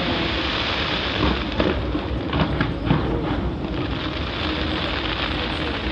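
Fireworks going off from a skyscraper: a continuous low rumble of bursts, with a thick run of crackles and pops about two to three seconds in.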